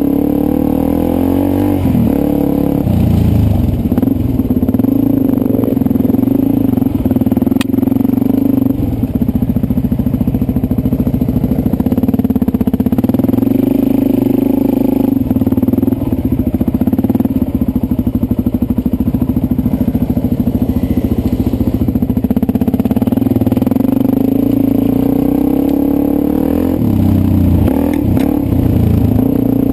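Dirt bike engine running under load on a rough trail, heard close up from a helmet camera. The engine note holds steady most of the time, dipping and rising in pitch as the throttle changes about two seconds in and again near the end.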